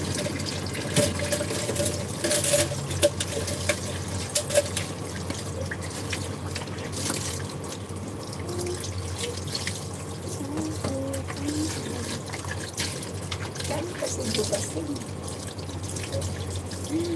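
Water running from a tap into a kitchen sink, with sharp clinks and clatters of bowls and utensils, the loudest between about one and five seconds in.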